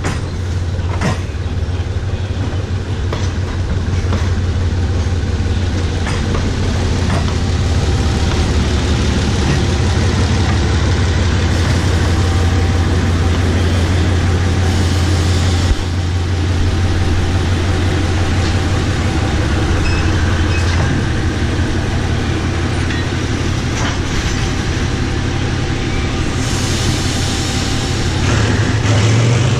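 GE diesel-electric shunting locomotive (Thai Railway GEK class No. 4011) running at low speed with a steady low engine drone as it hauls passenger coaches. Wheels click over rail joints in the first seconds, and the engine note rises near the end.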